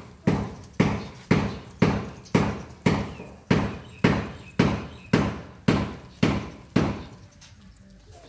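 A steady series of thuds, about two a second, that stops about seven seconds in.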